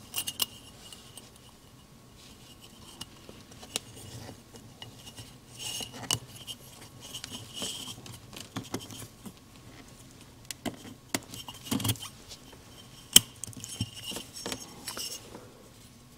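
Piston rings being worked onto a two-stroke piston by hand: scattered light metallic clicks, clinks and short scrapes of the thin rings against the aluminium piston, the loudest clicks a little before the end.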